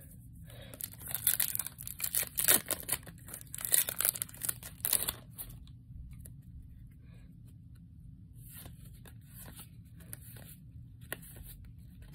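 A foil trading-card booster pack being torn open, with a few seconds of tearing and crinkling of the wrapper. After that comes quieter, intermittent rustling and sliding of the cards as they are handled.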